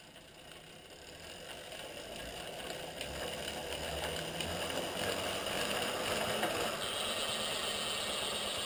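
DT Swiss R1850 road wheel and hub spinning, a steady whirring run that builds up over the first few seconds and then holds level.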